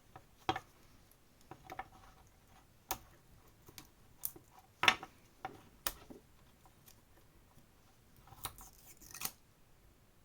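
Irregular sharp clicks, snaps and small scrapes of a hand tool working on the plastic parts of a Canon PIXMA inkjet printhead being taken apart. The loudest snap comes about five seconds in, and a short stretch of scraping comes near the end.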